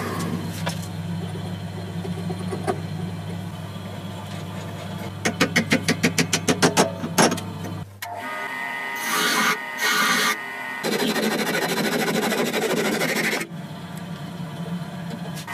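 Wood lathe running with a steady hum, with a quick run of clicks about five seconds in. About halfway through the hum stops and short scraping strokes follow, then a longer stretch of steady scraping: a file worked over a copper ferrule.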